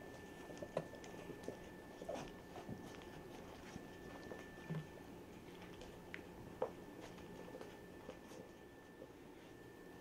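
Quiet scattered sounds of basset hound puppies and an adult basset hound close together: small squeaks, snuffling and shuffling on a blanket, with a faint steady high tone underneath.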